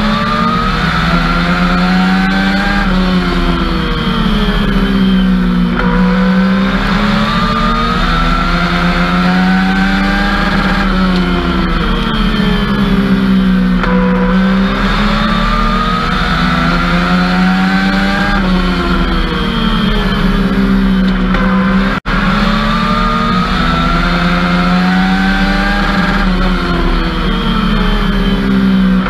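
Legends race car's Yamaha four-cylinder motorcycle engine at racing speed, heard from inside the cockpit: the revs climb along each straight and drop off into each turn, in a cycle of about eight seconds that repeats lap after lap. The sound cuts out for a moment about three-quarters of the way through.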